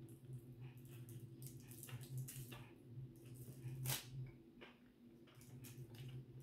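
A person biting into and chewing a soft custard-filled bun, with small wet mouth clicks and smacks scattered through, the loudest about four seconds in, over a steady low hum.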